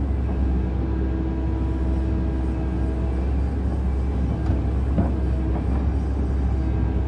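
Heavy machine's engine running steadily: a low rumble with a steady hum, with a couple of short knocks about four and a half and five seconds in.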